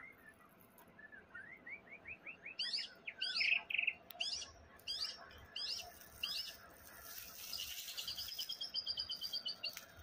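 White-rumped shama singing a varied song. It opens with a run of rising whistled notes, then repeats sweeping high phrases with a brief trill, and ends with a fast, even chatter over the last three seconds.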